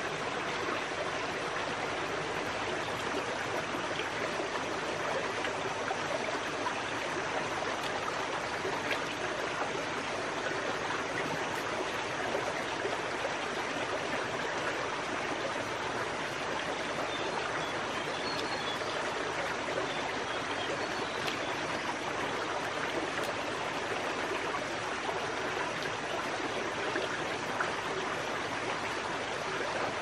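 Steady rush of running water, even and unbroken.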